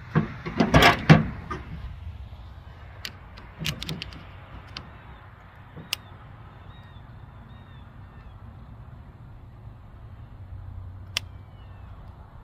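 Knocks and thumps of the chainsaw and tools being handled on a pickup tailgate in the first second or so, then a few light, scattered clicks of a screwdriver working at the guide bar. Faint bird chirps come in twice in the second half.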